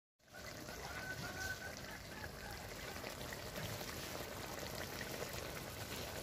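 Fish curry bubbling steadily in a karai over the fire, a constant wet simmering noise that starts abruptly a moment in.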